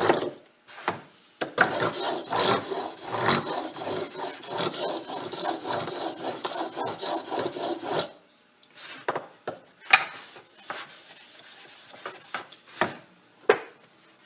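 Steel chisel rubbed back and forth on a 600-grit Japanese water stone while its flat back and bevel are honed: a gritty scraping for about six seconds, then a few short separate scrapes and knocks.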